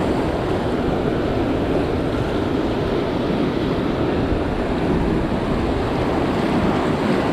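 Wind buffeting the microphone over steady noise from rough surf.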